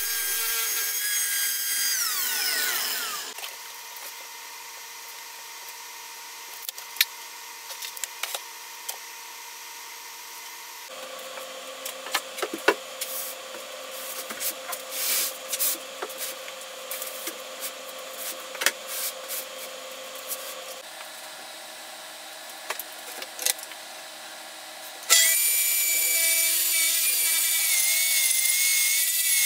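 Festool TS 75 plunge track saw cutting across a black walnut slab, then spinning down with a falling pitch about three seconds in. Scattered knocks and handling sounds follow for a long stretch, and about 25 seconds in the saw starts again and runs through the wood with a high whine.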